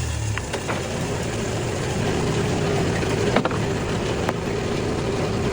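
Cook's AC36 band sawmill running steadily, with a few sharp clicks.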